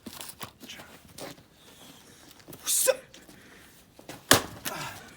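Axe striking a log of firewood: a few light knocks, then one sharp, loud crack about four seconds in as the blade bites and the log splits.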